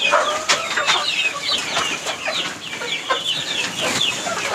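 A flock of young native chickens clucking and peeping together, many short overlapping calls with scattered scratching and pecking clicks.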